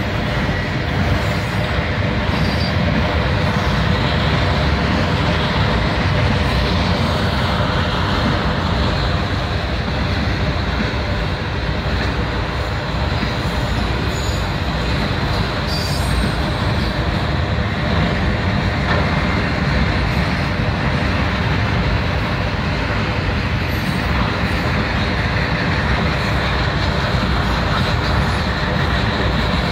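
Union Pacific freight train of autorack cars rolling past close by: a steady, unbroken noise of steel wheels running on the rails.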